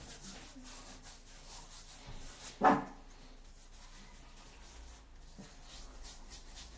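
A dog barks once, a single short bark about two and a half seconds in.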